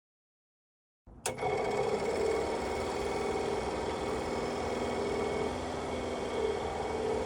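Silence for about a second, then a click and a furnace draft inducer motor running steadily on a bench power test, with an even hum of constant tones.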